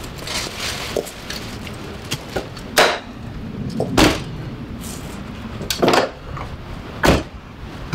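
A hatchback's tailgate is slammed shut, then its front doors are opened and shut: four solid thuds, the last two about a second apart near the end.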